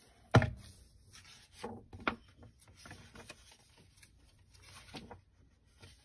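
A thump about half a second in, then a book opened and its paper pages turned, with several rustles.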